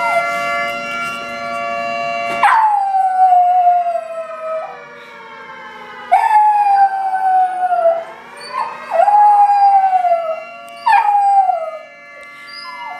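Small curly-coated dog howling: several long howls, each sliding down in pitch, with short yips between them. A steady held tone plays at the start and cuts off about two and a half seconds in, just as the first howl begins.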